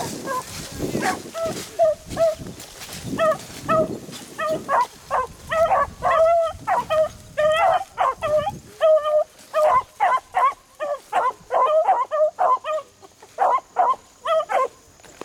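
Two beagles baying in a quick series of short, pitched barks, several a second, as they work a rabbit's scent line. Brush rustles low under the first few seconds before the baying picks up.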